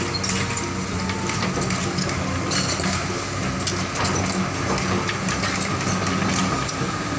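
Komatsu tracked hydraulic excavator's diesel engine running steadily, with frequent metallic clicks and clanks over it.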